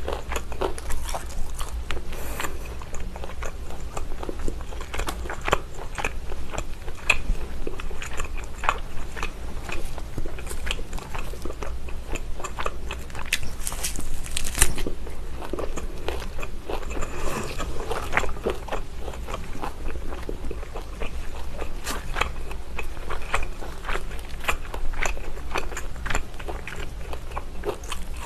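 Close-miked biting and chewing of grilled lamb chops, with many irregular small clicks and crackles as the meat is torn from the bone and chewed.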